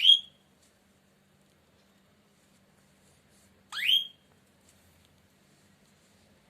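Budgerigar giving two short, sharp, upward-sweeping chirps, one at the start and one about four seconds in.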